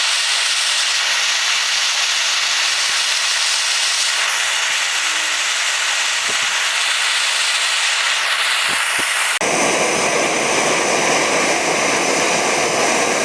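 MAP gas torch burning with a steady hiss as it heats a hardened steel punch to draw its temper. About nine seconds in the sound changes abruptly to a fuller, deeper rush.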